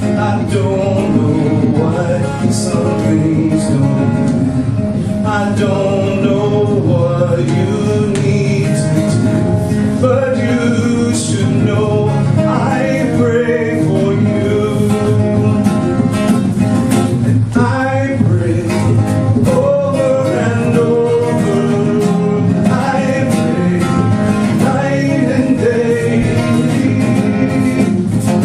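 A man singing a song live over steady instrumental accompaniment, with guitar prominent.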